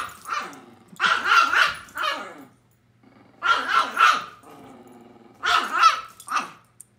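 Dogs play-fighting: barking and growling in three loud bursts, about a second, three and a half seconds and five and a half seconds in, from a Great Pyrenees wrestling with a small dog.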